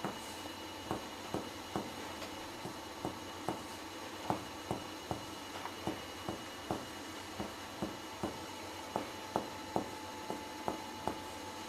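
Finger-on-finger percussion of a patient's back over the lungs: a steady run of short taps, about two to three a second. The percussion note is a clear lung sound, the normal finding over air-filled lungs.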